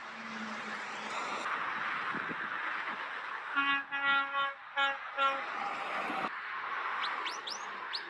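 Truck horn on a Renault T lorry sounding a quick run of five or six short single-pitch blasts over about two seconds, over steady motorway traffic and tyre noise.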